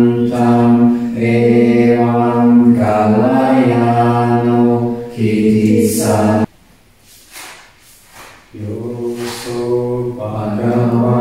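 Buddhist devotional chanting in Pali by a group of voices, low and close to one pitch. About six and a half seconds in, the chant breaks off for about two seconds with breaths, then goes on.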